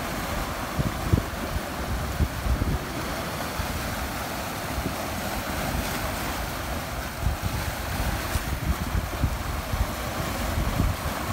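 Wind rumbling and buffeting on the microphone over a steady wash of waves.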